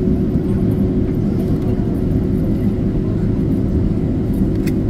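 Steady low rumble and hum inside the cabin of a Boeing 767-300 airliner on the ground after landing, with a faint click near the end.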